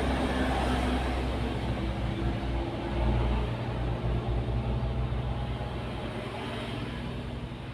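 Motor vehicle engine running, a low steady rumble that eases off slightly near the end.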